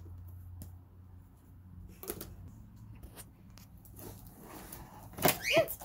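Faint clicks and scrapes of a cardboard toy box being handled and its seal picked open, over a low steady hum. Near the end comes a short, loud vocal sound that glides up and then down in pitch.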